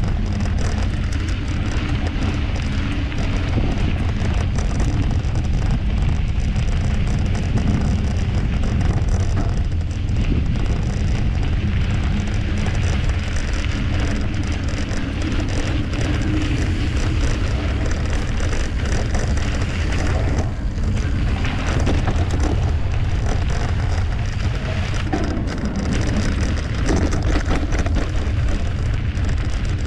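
Mountain bike rolling along a dirt singletrack: continuous crunch and crackle of the tyres on the trail surface with small rattles from the bike, over a steady low rumble.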